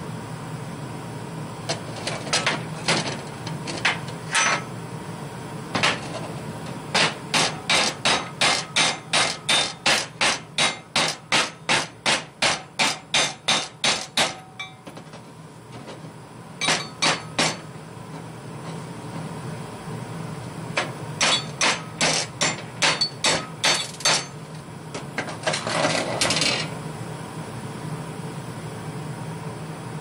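Chipping hammer striking fresh welds on steel to knock off the slag: sharp metallic taps in runs of about three a second, with a brief scraping burst near the end, over a steady low hum.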